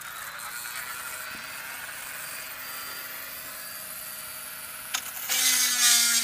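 A Dremel rotary tool with a drill bit runs with a steady high whine while drilling through a shovel handle for a rivet. About five seconds in the sound turns louder and harsher as the bit bites in under load.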